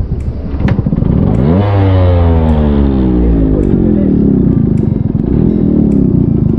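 Yamaha RX100's two-stroke single-cylinder engine revving up sharply about a second and a half in, then its note falling slowly as the revs drop over the next few seconds, with wind buffeting the microphone.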